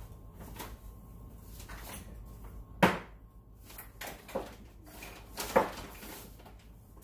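Kitchen cupboard being opened and shut and things moved about inside it while a seasoning is fetched: a few sharp knocks and clunks, the loudest about three seconds in and again about five and a half seconds in.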